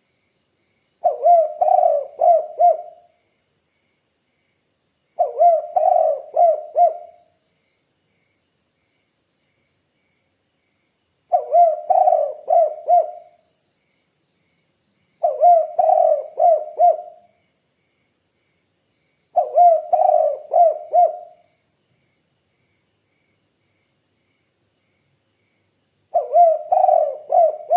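Spotted dove (tekukur) cooing: six phrases of four or five quick coos each, spaced a few seconds apart, the last cut off at the end.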